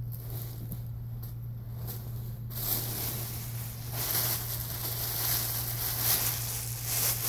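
Tulle dress fabric and plastic packaging rustling and crinkling as a wedding dress is unpacked, getting much louder about two and a half seconds in, over a steady low hum.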